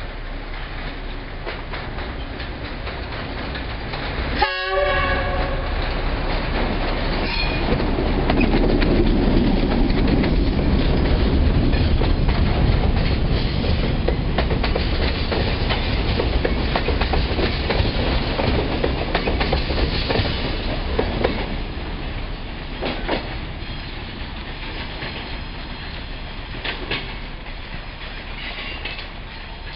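DF7 diesel locomotive hauling a freight train past, its rumble building and then fading, with the clatter of the wagon wheels over the rail joints. A short horn blast sounds about four and a half seconds in.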